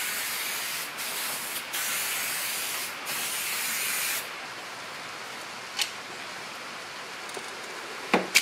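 Aerosol can of spray contact cement hissing in several bursts onto a sheet of aluminium, stopping after about four seconds. A sharp click follows near the end.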